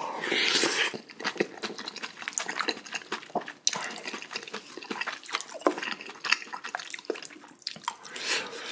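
Close-up wet chewing and mouth smacking of a spoonful of rice mixed in spicy beef small-intestine hot pot, full of small sticky clicks. It opens with a loud breathy slurp-like intake as the spoon goes into the mouth.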